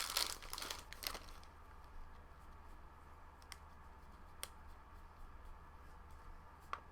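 Foil trading-card pack wrapper crinkling for about the first second and a half. Then a few faint clicks and rustles as the cards are handled.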